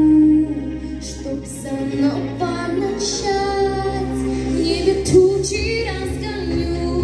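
A young female singer performing a pop song into a handheld microphone, with sustained, gliding sung notes over a backing track.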